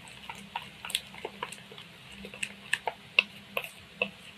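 A metal spoon stirring a thick yogurt-and-spice marinade in a plastic bowl: irregular wet squelches and clicks, several a second, stopping just before the end.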